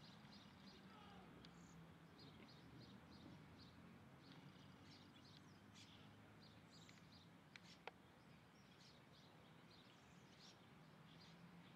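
Faint outdoor ambience with many short, high chirps from small birds, repeating throughout. Two sharp clicks come close together about two-thirds of the way in.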